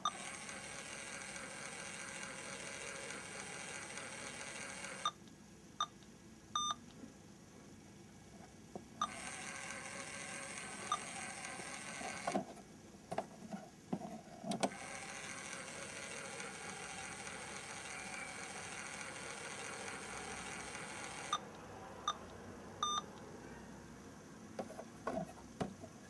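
LEGO model microwave's small electric motor whirring steadily as it drives the turntable, stopping and starting three times. Short electronic beeps sound in the pauses, and plastic clicks and knocks come from the door being opened and closed about halfway through and again near the end.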